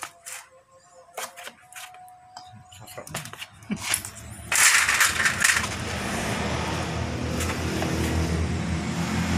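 Light taps and rustling as hands press and smooth a sheet of gasket paper over a water pump housing. About four and a half seconds in, an engine comes on nearby, loudest for the first second, then running steadily with a low hum.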